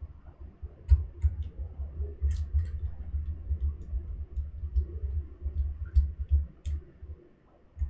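Small screwdriver driving the SSD's retaining screw back into a laptop's drive bay: scattered light clicks over low knocks from handling the laptop, stopping about seven seconds in.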